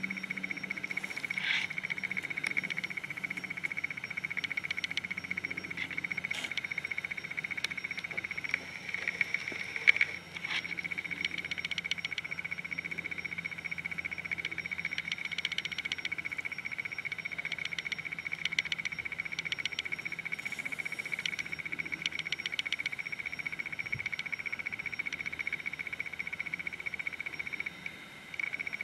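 Outdoor chorus of calling frogs: a steady high-pitched trill with repeated bursts of rapid clicking, and one sharp click about ten seconds in.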